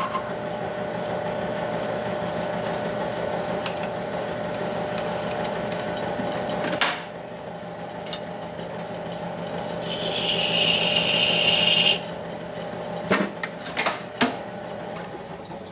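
South Bend 10" metal lathe running with a cast governor arm spinning in its four-jaw chuck, a steady hum with a click about seven seconds in after which it runs a little quieter. Around ten seconds in there is a two-second hissing scrape, the loudest sound here, followed by several sharp clicks and knocks near the end.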